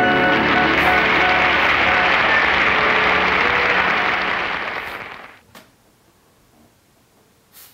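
Applause, with the last held notes of a song ringing out under it; the clapping dies away about five seconds in, leaving faint room sound with a couple of small clicks.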